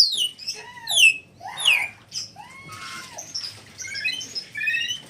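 Red lory calling: a series of sharp, steeply downward-sliding whistled squawks about a second apart, followed by quicker, softer chattering notes in the second half.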